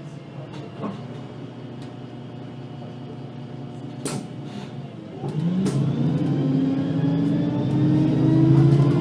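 VDL Citea LLE-120 city bus running quietly at low engine speed, then pulling away about five seconds in, its engine note rising in pitch and growing louder as it accelerates. A sharp click about four seconds in.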